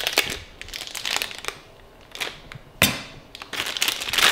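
Plastic cheese wrapper crinkling and crackling in the hands, with a single sharp knock about three seconds in.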